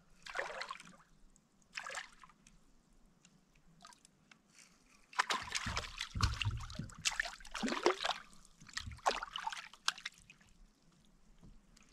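A hooked crappie splashing at the surface beside a kayak: a short splash near the start and another about two seconds in, then about five seconds of thrashing and sloshing as the fish is drawn alongside and a hand reaches into the water for it.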